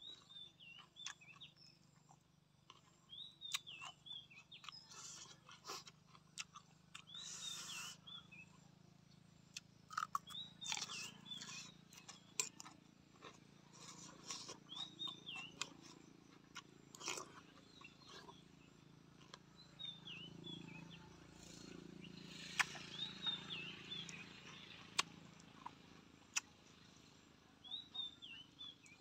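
Close-up eating sounds: clicks, smacks and wet chewing, scattered irregularly. A bird sings short warbling chirp phrases in the background, repeating every few seconds.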